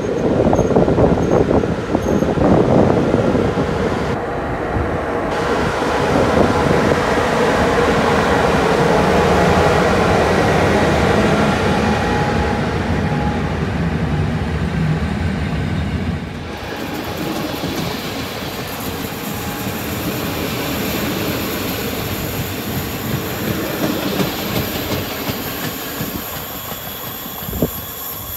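Departing passenger train: two electric locomotives pass close, their motors and cooling fans droning with steady hums, then the coaches roll by with wheel clacks. From about halfway the wheels squeal in high thin tones as the train takes a curve, with a sharp click near the end.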